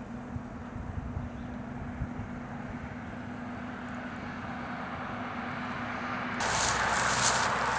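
Road traffic noise from a nearby road: a low rumble, then a louder rush of tyre and engine noise from a passing vehicle starting about six seconds in.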